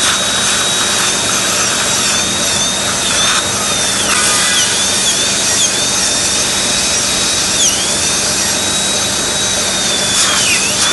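High-speed dental surgical handpiece whining as it cuts an osteotomy in the jaw bone, its pitch dipping briefly several times, over a steady hiss.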